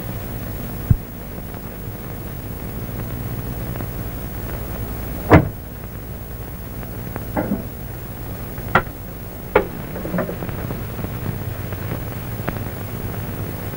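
Steady hiss and low hum of an old optical film soundtrack, broken by a handful of short, scattered knocks and taps, the loudest about five seconds in.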